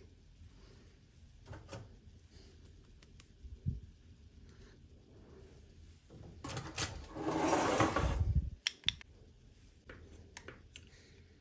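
Small toy packaging and pieces being handled: scattered light clicks and taps, with one louder, noisy handling sound lasting about two seconds, past the middle.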